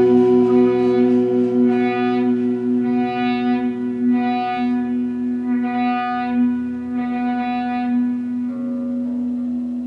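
Amplified electric violin and electric guitars holding one sustained drone note, its upper overtones swelling and fading about once a second. Near the end the sound thins and a different, higher tone comes in.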